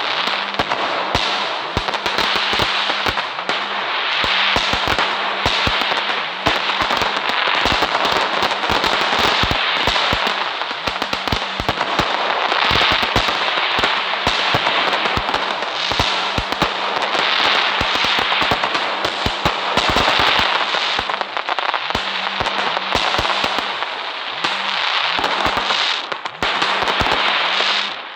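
Fireworks going off without a break: a dense run of sharp cracks and pops over a steady hiss.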